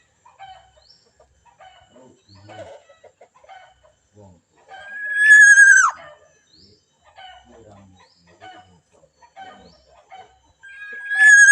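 A rooster crowing twice, about six seconds apart: each crow a long held note that drops away sharply at its end. Faint short chirps and clucks come in between.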